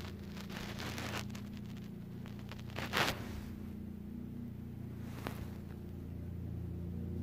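Rustling and rubbing of a hand and phone being handled, with a louder rustle about three seconds in and a single sharp click a little after five seconds, over a steady low hum.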